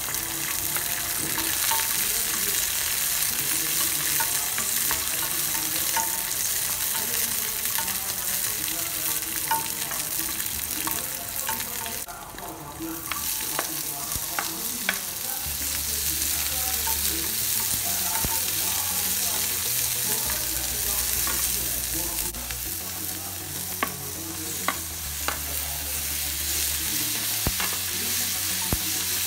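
Garlic cloves and dried red chillies sizzling in hot oil in an aluminium pan on a gas burner, stirred with a wooden spatula that clicks against the pan now and then. The sizzle drops briefly about halfway, then picks up again as chopped onion is tipped in.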